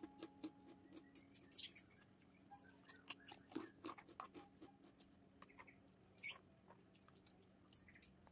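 Faint, close eating sounds: irregular small crunches and clicks from chewing a fried kerupuk cracker, with a metal spoon tapping and scraping in a plastic bowl.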